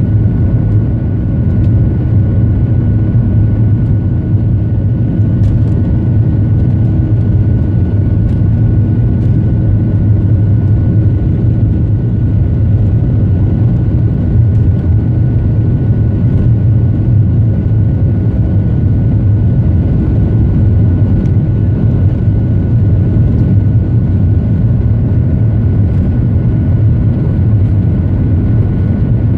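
Boeing 737 cabin noise from a window seat over the wing: the jet engines run at a steady pitch, a low drone with a constant high whine, while the aircraft rolls along the runway. A few faint clicks come through.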